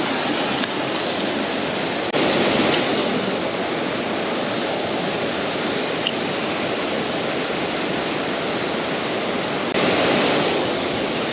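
Steady rush of water from a waterfall about 30 feet high, swelling briefly louder twice, about two seconds in and near the end.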